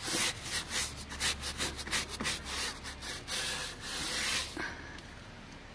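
Household scrub brush scrubbing a wet rubber tire sidewall in quick back-and-forth strokes, several a second. The scrubbing stops near the end.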